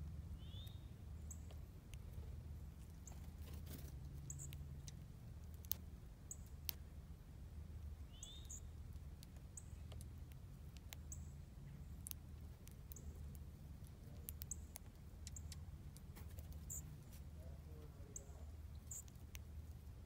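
Small songbirds feeding on the ground give short, high chip calls every second or so, with two brief downward chirps about a second in and again about eight seconds in; faint sharp clicks are scattered among the calls.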